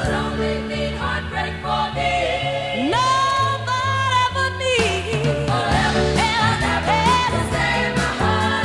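Pop song with a steady bass beat and singing, including one long held, wavering vocal note in the middle.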